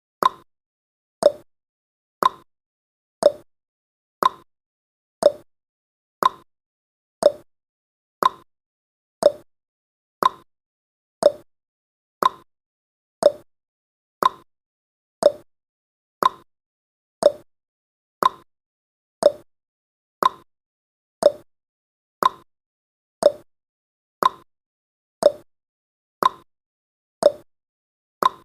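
Countdown timer's ticking sound effect: one short tick every second, evenly spaced.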